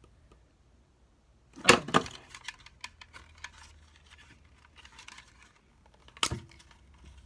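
Plastic parts of a small LED light and phone stand being handled and adjusted: scattered small clicks and rattles, with a loud knock about two seconds in and another near the end.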